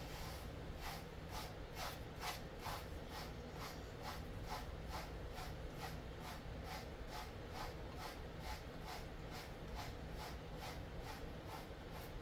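A slicker brush drawn through a dog's coat in quick repeated strokes, a dry scratchy rasp about two and a half times a second, kept up evenly throughout.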